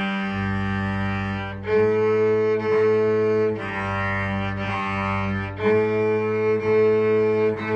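Cello and violin playing together an octave apart, bowing one-beat notes that jump between A and G, about one note a second.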